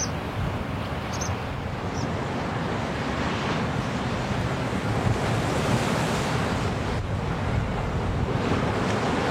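Steady rushing noise that swells and eases, with two short high chirps in the first two seconds.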